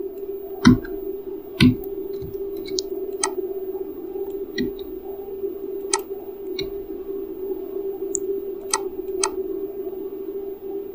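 Computer keyboard and mouse clicks, single and a second or more apart, over a steady low hum.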